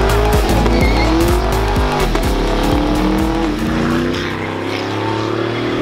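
Car engine revving hard, its pitch rising and falling again and again during a burnout, with tyre squeal.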